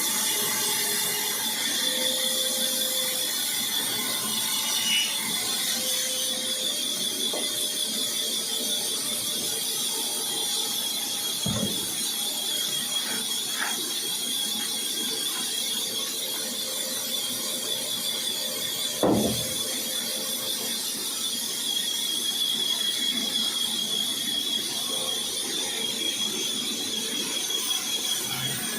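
A woodworking power tool running steadily with a constant high-pitched whine, and two brief knocks partway through.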